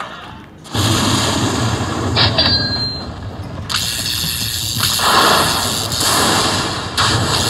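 Lightning Link slot machine game sounds: sudden heavy hits and clanging dings, starting about three quarters of a second in, with a high ring about two seconds in.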